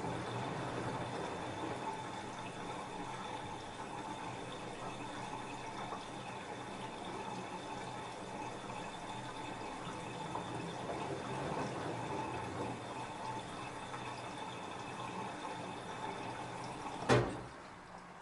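LG F10A8HDS5 front-loading washing machine filling with water, a steady rush of water running in. Near the end a single sharp click sounds and the water noise drops away at once.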